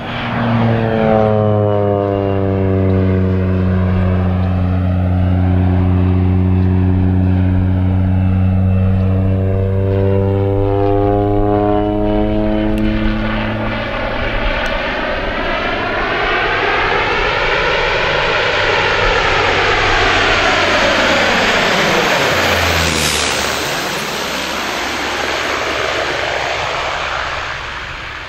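Air Tractor AT-402 crop duster's Pratt & Whitney PT6A turboprop engine and propeller droning as the plane turns overhead and makes a low pass, with a sweeping, phasing quality. About 22 seconds in it passes close and the pitch drops sharply, then the sound eases off.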